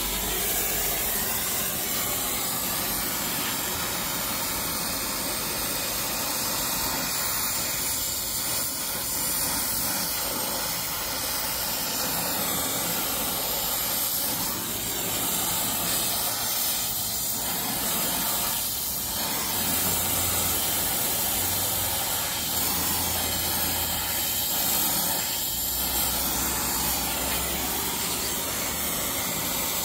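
Brazing torch flame hissing steadily as it heats copper pipe joints for brazing.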